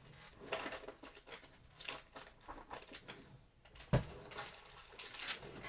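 Faint handling noises: light taps and rustles as craft supplies are moved about, with one louder thump about four seconds in.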